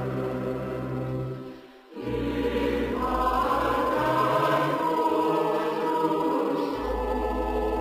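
Slow choral music: voices holding sustained chords over a low steady bass, with a short break about two seconds in before the chords return fuller.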